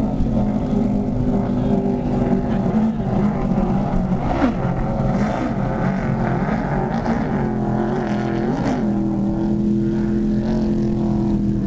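Racing engines of Jersey speed skiff boats running at race speed on the course: a steady engine drone with a couple of brief shifts in pitch.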